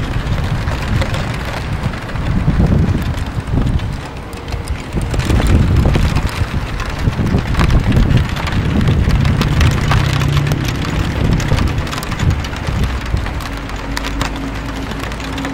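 Steady rain falling, with many close drops ticking against the roof tiles and window, over a low rumble.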